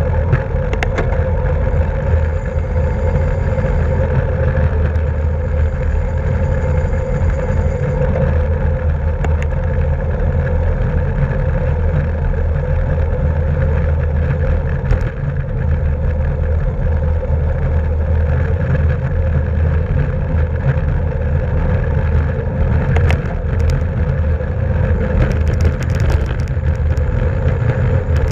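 Steady wind and road noise on a camera riding on a racing bicycle at speed: a constant low rumble with a few sharp clicks.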